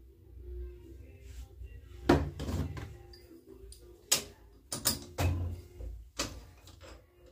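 Several separate sharp knocks and metal clanks, the loudest about two seconds in and a cluster around the middle, as a wooden drumstick blank is fitted into a copy lathe's metal chuck and the chuck is worked by hand, over a faint low hum.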